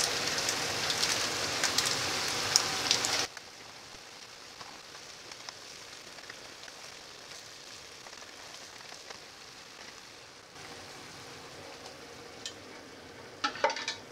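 Vegetables sizzling in oil and dashi in a frying pan, a loud crackling hiss that cuts off abruptly about three seconds in to a much quieter, steady simmer of the vegetables and tomato in broth. A few sharp metallic clinks of cookware near the end.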